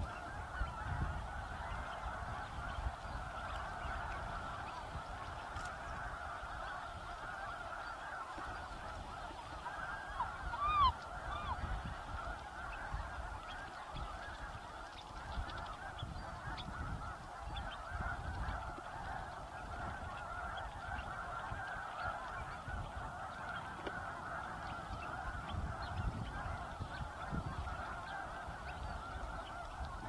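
A large flock of waterfowl on tidal flats calling all at once: a steady, dense chorus of many overlapping honks and calls, with one louder single call standing out about a third of the way through.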